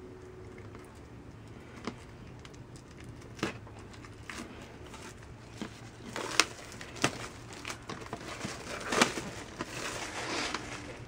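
Cellophane wrapping being torn and peeled off a cardboard box by hand: scattered crinkles and sharp snaps, building to a denser stretch of crumpling near the end.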